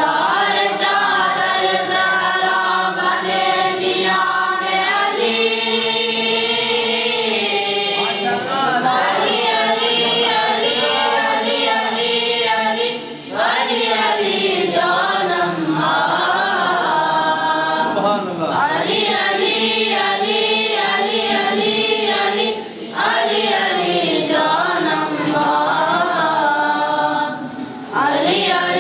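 A group of boys singing a devotional song together in unison, unaccompanied, in long held phrases with short breaks for breath.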